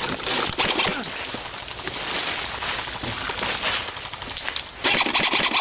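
Irregular rustling and crackling of leaves and brush as someone moves low through undergrowth, louder near the end.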